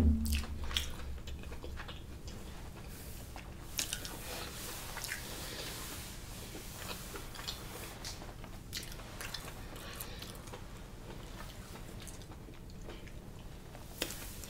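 Close-miked chewing of a mouthful of shrimp Alfredo pasta, with many soft wet mouth clicks and smacks. A short low thump comes right at the start.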